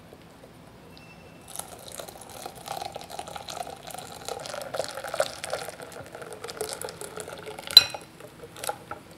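A wire whisk beats egg yolk and sugar in a glass bowl while cream and milk is poured in a thin stream. From about a second and a half in, liquid splashes and the wires tick rapidly against the glass. Near the end come a sharp clink of the whisk on the bowl's rim, the loudest sound, and a second, lighter clink.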